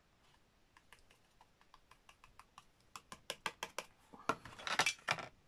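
Stiff paper card being handled and tapped: a run of light clicks and taps that grow quicker and louder about three seconds in, then a short paper rustle near the end, as loose embossing powder is shaken about on the folded card.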